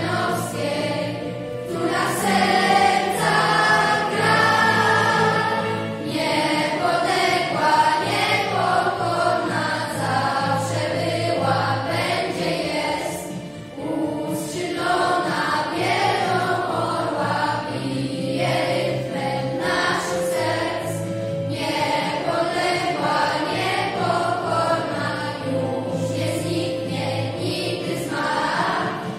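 A children's school choir of girls and boys singing together in unison, with a short pause between phrases about halfway through.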